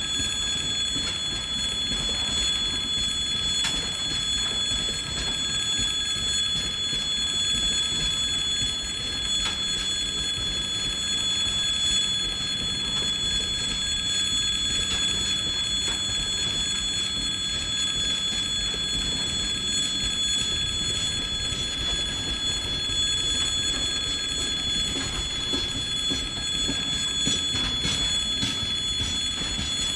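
Freight train rolling past on the rails with a steady rumble, while the level crossing's warning bell rings continuously.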